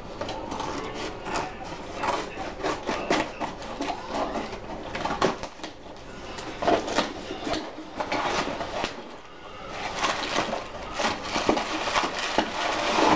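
Cardboard shipping box being cut and pulled open by hand: irregular scraping, crackling and rustling of cardboard and packing tape, with a short lull about two-thirds of the way through.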